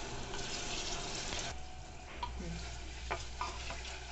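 Mutton sizzling in an aluminium pressure cooker as a wooden spatula stirs it, scraping and knocking against the pan. The sizzle falls off about a second and a half in, leaving a few scrapes and taps.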